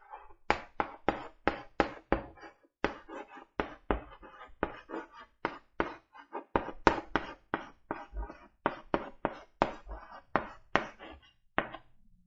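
Chalk writing on a blackboard: a quick run of sharp taps and short scratches, about three strokes a second, as the letters of a word are stroked out one after another.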